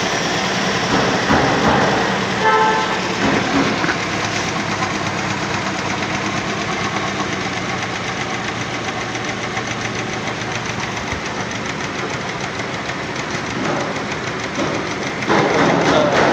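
Car engine idling just after starting, running unevenly with a misfire, which the title puts down to a spark plug. It grows louder near the end.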